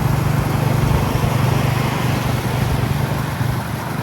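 Royal Enfield Classic 350's single-cylinder engine thumping steadily under way, with wind and road noise.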